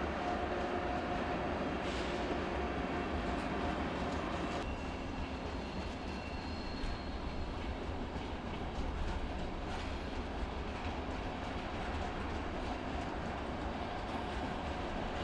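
Train running on the rails: a steady rumble with a humming tone that drops out about four and a half seconds in.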